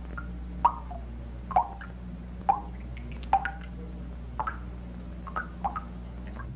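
Water dripping, one drop at a time, roughly one a second, each a short sharp plink. A steady low hum sits beneath.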